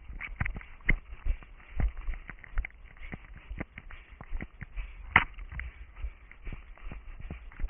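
An orienteer's footsteps running through forest terrain: irregular crunches and snaps underfoot, with a louder crack about five seconds in.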